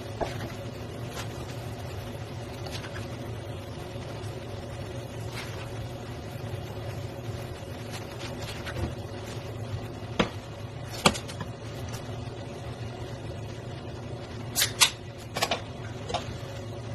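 A cooking utensil clinking and scraping against a stone-coated wok pan as stir-fried noodles are tossed and dished out: a few sharp clinks about ten seconds in, and a cluster of ringing ones near the end, over a steady low hum.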